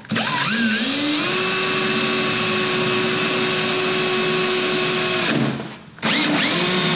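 Cordless drill boring a hole through the van's sheet-metal door. The motor spins up to a steady whine over about a second, runs for about five seconds, stops briefly, then starts again near the end.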